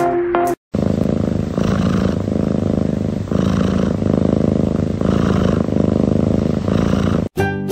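A cat purring loudly and steadily, the purr swelling and easing about every second and a half to two seconds with its breathing. A snatch of music cuts off in the first moment.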